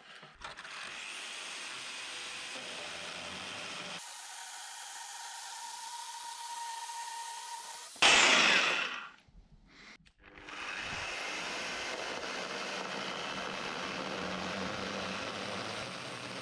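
Festool plunge-cut circular saw running along its guide rail, cutting through an oak purlin. About eight seconds in there is a loud burst, then the motor's whine falls away as it winds down; after a brief quiet the saw runs steadily again.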